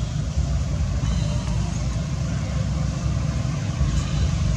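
Steady low rumble of outdoor background noise, strongest in the deep bass and fluctuating without any clear rhythm or pitch.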